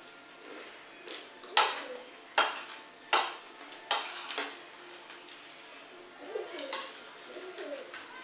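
Metal spoons clinking and scraping against ceramic plates while eating. Four sharp clinks come about three-quarters of a second apart, starting a little over a second in, followed by softer scrapes.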